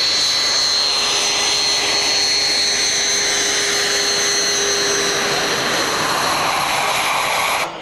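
BAE Hawk T1 jet trainer's Adour turbofan running at taxi power as it rolls past close by: a steady high-pitched whine over a loud jet rush. The sound cuts off abruptly near the end.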